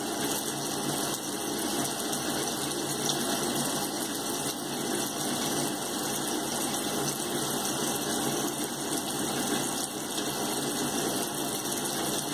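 Thin stream of tap water running steadily from a bathroom sink faucet and splashing onto the drain.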